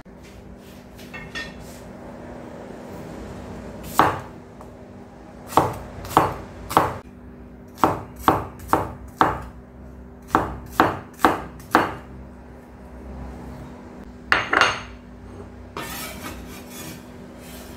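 Cleaver cutting shallots on a bamboo cutting board: about a dozen sharp knocks of the blade on the wood in uneven runs, then a softer brushing near the end as the cut pieces are pushed together. A faint steady hum runs underneath.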